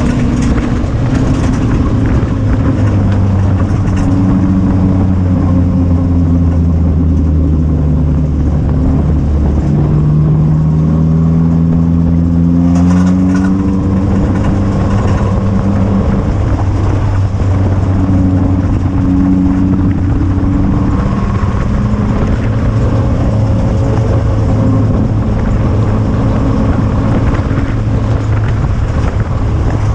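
Four-cylinder stock car engine heard from inside the cockpit, running steadily at low speed as the field rolls slowly in line under caution. The engine note rises and settles again about ten to thirteen seconds in.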